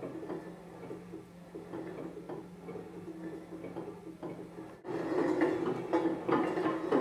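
Glass pot lids with metal rims and a stainless steel lid spinning and wobbling on their rims on a wooden tabletop, a continuous fast rattling whirr of rim against wood. It cuts off sharply about five seconds in and comes back louder.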